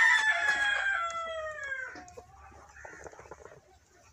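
Rooster crowing: one long call that holds, then falls in pitch and fades out about two seconds in.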